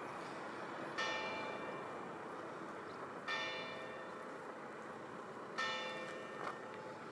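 Church bell tolling slowly: three strokes a little over two seconds apart, each ringing on and fading, over faint background hiss.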